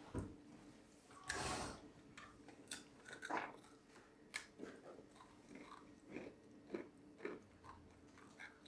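A person chewing dry, crunchy dog biscuits: scattered, irregular small crunches and mouth clicks, with one slightly longer crunch about a second in.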